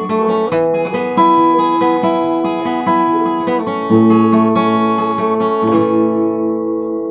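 Acoustic guitar finger-picked, playing an instrumental passage of arpeggiated chords with no singing, letting the last chord ring out near the end.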